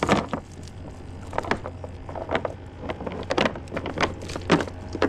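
Irregular knocks and rattles on a plastic kayak as a wet cast net is hauled aboard and dropped into the cockpit. A steady low hum runs underneath.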